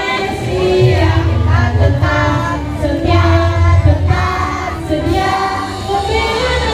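A song playing: several voices singing over a heavy bass line, with no speech.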